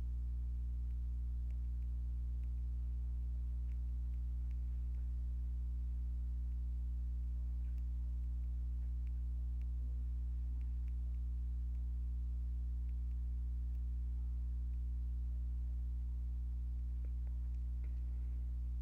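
Steady low electrical hum with evenly spaced overtones, unchanging in level, with a few faint ticks scattered over it.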